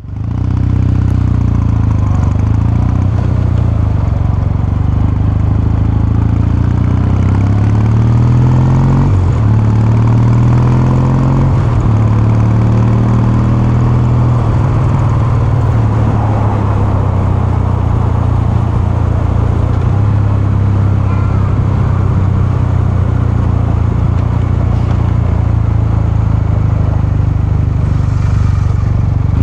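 Kawasaki Meguro K3's air-cooled 773 cc parallel-twin engine and exhaust running while the bike is ridden. The engine note rises and drops a few times between about eight and twelve seconds in, then holds steady.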